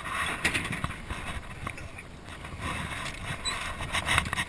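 Scattered knocks, clicks and rustling as gear is handled in a small boat, such as a cooler lid being moved.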